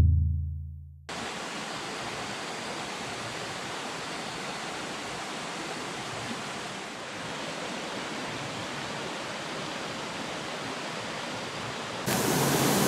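A shallow rocky stream flowing steadily, an even rushing of water that gets louder near the end. In the first second a low tone dies away before the water starts.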